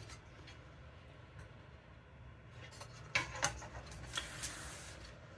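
Computer hardware being handled: a few light clicks and taps, then a brief rustle near the end, over a faint steady hum.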